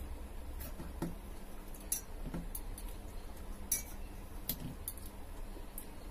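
Scattered light clinks and taps on a steel plate as food is scooped and scraped up by hand, about half a dozen over a few seconds, with a low steady hum underneath.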